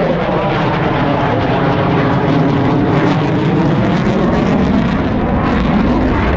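Eurofighter Typhoon fighter jet's twin EJ200 turbofan engines, loud and steady jet noise as the aircraft flies its display.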